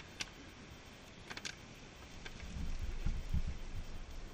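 A hand spray bottle squirting cleaner, a couple of short hisses about a second and a half in, then low rumbling thumps of handling noise for the second half.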